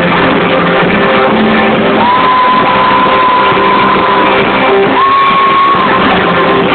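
Live indie-rock band playing loud in a concert hall, heard from within the audience, with guitars, keys and a few crowd shouts. Two long high notes are held over the band, the first starting about two seconds in and a shorter one about five seconds in.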